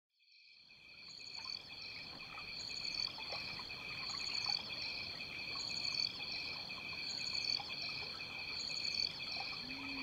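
Amazon rainforest ambience fading in: a steady insect chorus at several high pitches, with a short high chirp repeating about every one and a half seconds and faint trickling of water. A low music note comes in near the end.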